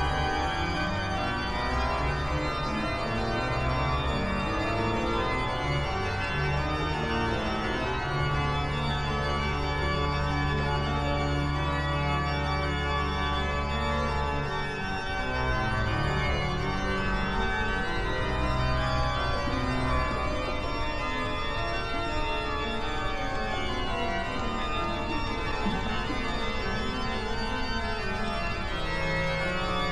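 Organ music playing dense, sustained chords, with deep bass notes held from about eight to fourteen seconds in.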